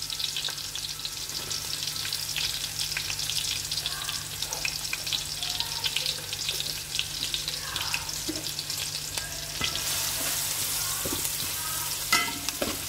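Sliced shallots frying in hot sesame oil in a metal pan, a steady dense crackling sizzle. A spatula stirs them near the end.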